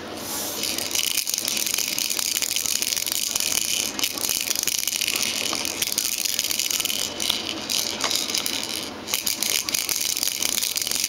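Clear plastic bead-spinner dome on a baby activity centre being spun, its beads rattling in a dense, steady clatter with a few brief pauses.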